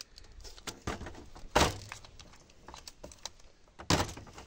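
Metal-backed monitor LCD panel being handled and set down on a worktable: a few sharp knocks and clatters, the loudest about one and a half seconds in and a quick double knock near the end.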